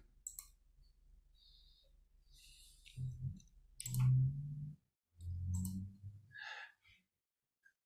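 A man's voice in three short, low murmurs or sighs a few seconds in, with a few faint clicks in between; the rest is near silence.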